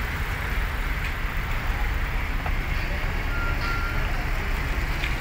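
Vehicle engines running in a low, steady rumble. A little over three seconds in there is a short, high electronic beep.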